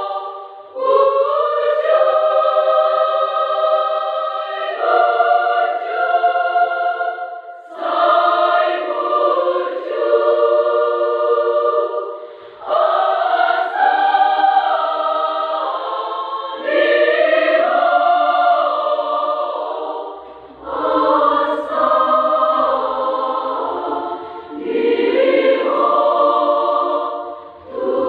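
Large women's choir singing a hymn in Batak in several parts, without accompaniment, in sustained phrases broken by short breath pauses about every four to five seconds.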